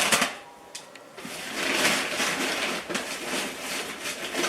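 Rustling and crinkling of food packaging, plastic wrap and cardboard boxes being handled as frozen groceries are taken out of a delivery box, with a short burst at the start and steadier rustling from about a second in.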